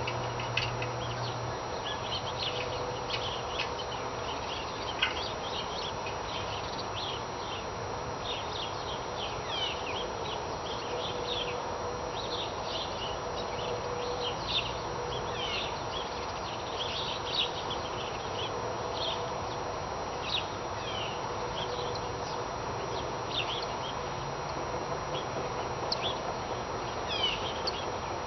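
Many birds chirping outdoors, a continuous run of short high calls and quick falling notes, over a faint steady hum.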